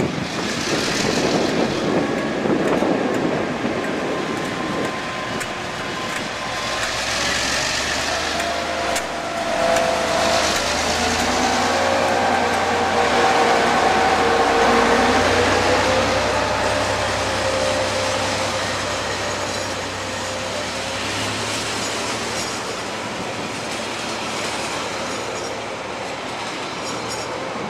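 DC-class diesel-electric locomotive passing close by at low speed, hauling a train of passenger coaches. The engine is loudest at the start, then the coaches roll past with wheel noise and a wavering squeal from about 9 to 16 seconds in.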